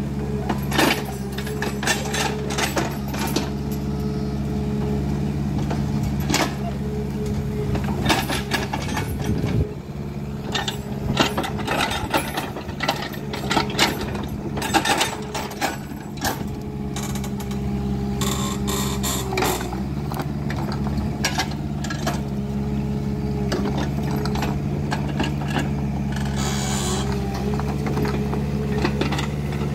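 Kubota mini excavator's diesel engine running steadily under working load while it clears forest, with frequent sharp knocks and cracks scattered throughout.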